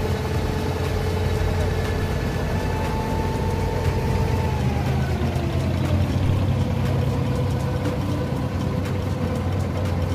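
Diesel engine of a wooden abra water taxi running steadily as the boat pulls away from the dock. Its note dips a little about halfway through.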